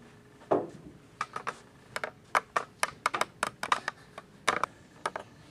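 A run of light, irregular clicks and taps, about twenty over four seconds: a small hard cookie landing and clattering on a wooden countertop.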